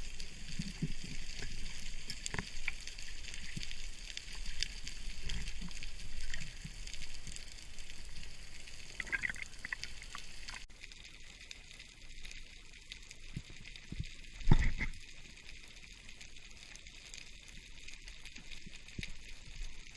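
Water moving and sloshing around a camera during spearfishing, with scattered small clicks. The sound changes abruptly about halfway through, and there is a single louder low thump a little after that.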